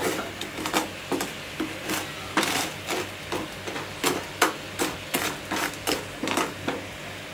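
A kitchen utensil knocking repeatedly and evenly, about two to three sharp knocks a second, over a steady low hum.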